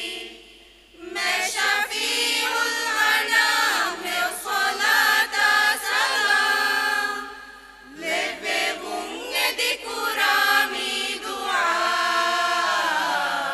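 A group of voices singing a madhaha, a Maldivian Islamic devotional praise song, in long held phrases, with short breaks between phrases about a second in and around eight seconds in.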